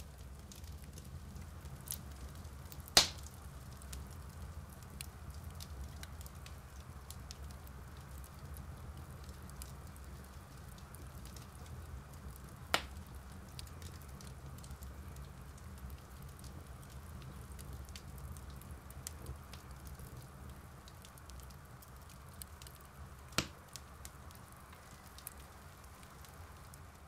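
Wood campfire crackling steadily with many small ticks, over a low steady rumble; three loud sharp pops stand out, about 3, 13 and 23 seconds in.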